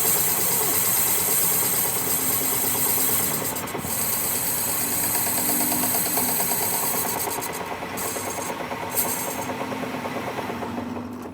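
Steady abrasive rasping of abrasive paper against a metal workpiece spinning in a lathe, finishing the idler wheel bush. It eases off near the end.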